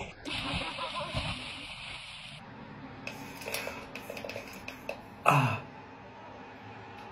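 A man's loud, short sneeze about five seconds in, set off by something poked into his nostril, after a few short breaths. Before it, about the first two seconds hold the rush of a stream under a snow bridge with a couple of dull thuds.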